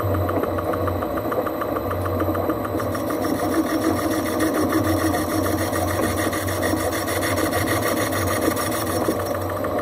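Holbrook C8 lathe running with the cutting tool taking a light finishing cut, a rapid, even scraping rhythm over the hum of the machine. The cut sounds interrupted: the tool is catching only part of each turn, a sign that the work is not yet running true.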